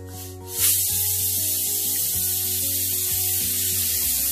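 Pressure cooker whistle blowing: a loud, steady hiss of steam jetting from the weight valve, starting suddenly about half a second in. This is the cooker's whistle, the sign that it has reached full pressure.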